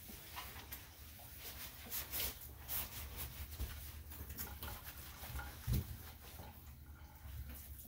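Shampoo being squeezed onto and rubbed by hand into a wet dog's coat in a bathtub: a run of short, irregular wet rubbing and squirting sounds, with a dull thump a little before the end.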